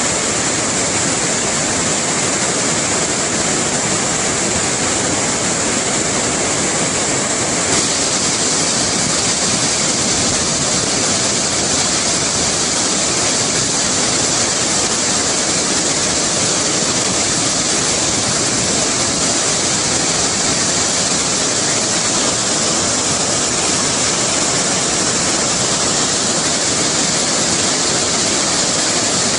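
Steady, loud rush of a river in flood tumbling over rocky rapids, with a slight change in tone about eight seconds in.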